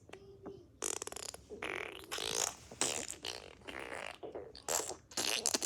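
Fart noises made with the mouth, air from a puffed air pocket forced out through the lips: a string of short buzzy blasts, each under a second long, starting about a second in.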